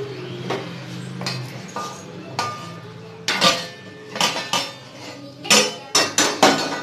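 Metal plate-lid being lifted off an aluminium cooking pot, clanking against the pot's rim: a string of sharp metallic knocks with some ringing, the loudest about three and a half seconds in and several close together near the end.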